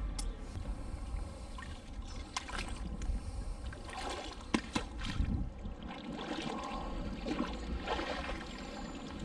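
Canal water splashing and trickling around a magnet-fishing magnet and its rope as they are worked through the water, with scattered sharp clicks and knocks.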